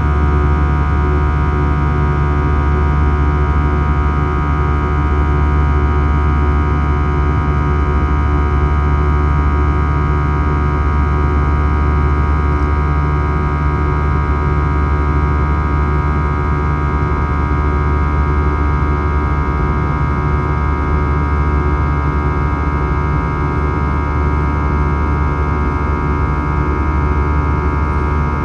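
Cabin drone of an Airbus A321's CFM56 turbofan engines running at steady power, heard from a window seat inside the cabin: a low hum with several steady whining tones above it, unchanging throughout.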